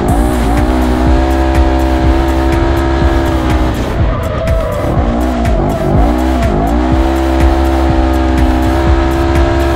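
Polaris RZR UTV engine heard from inside the open cab under hard throttle, its pitch held mostly steady while the speed changes. The revs dip and climb back quickly near the start and again between about four and seven seconds in.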